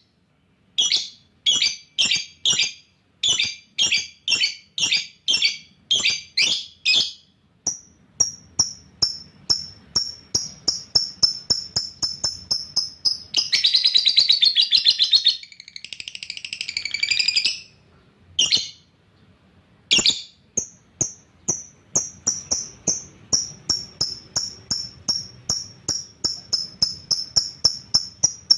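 A lovebird calling in sharp, high chirps, about two a second at first, then in faster runs of thinner chirps. About halfway through comes a continuous chattering trill lasting a few seconds.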